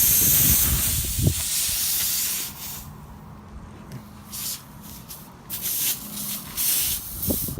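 Air hissing out of a punctured car tyre while the nail hole is reamed with a plug-kit rasp tool: a steady hiss for about two seconds, then short separate bursts of hiss as the tool works in and out, with a few low handling knocks.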